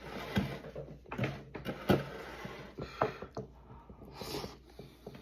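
Close-up eating sounds: a fork clicking and scraping on a plate of biscuits and gravy in irregular taps, the sharpest click about two seconds in.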